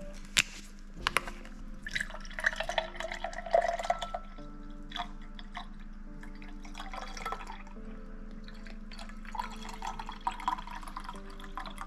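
Orange juice pouring from a carton into a tall glass, splashing and glugging in three uneven spells. Two sharp clicks near the start come as the carton's plastic screw cap is twisted off.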